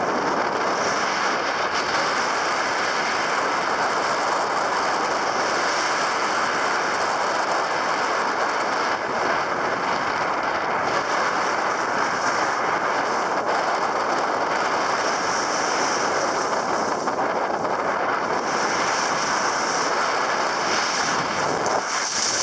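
Skis sliding and scraping over hard-packed groomed snow during a downhill run, a steady rushing hiss, mixed with wind on the microphone.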